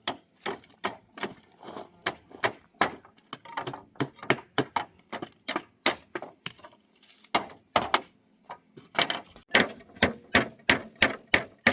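A hammer striking wood over and over, about two to three blows a second, with a short lull around the middle and quicker blows near the end.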